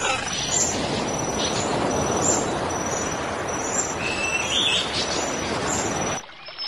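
Small birds chirping over a loud, steady rushing noise, which cuts off suddenly near the end.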